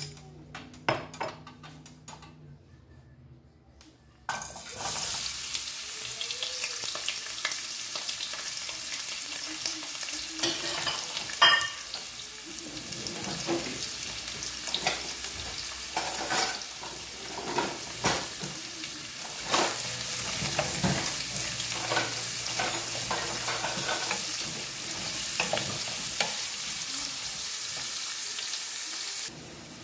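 Diced beetroot frying in hot oil in an aluminium pot. A steady sizzle starts suddenly about four seconds in, as the pieces go in, and a wooden spoon knocks and scrapes against the pot while they are stirred.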